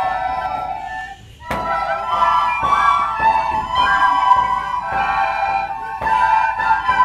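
A large group of children playing soprano recorders in unison, a melody of held notes. About a second in the playing briefly stops, then a sharp knock and the melody resumes.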